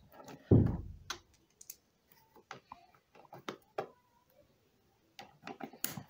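Hands fitting plugs back into a vacuum cleaner's plastic housing: a dull thump about half a second in, then scattered light plastic clicks and knocks.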